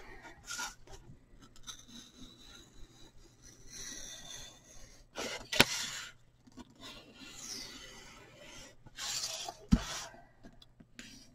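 Marker and snap-off utility knife working foam core board: the pen rubs as it traces an egg shape and the blade scrapes through the board. Two sharp taps come about five and a half and nearly ten seconds in.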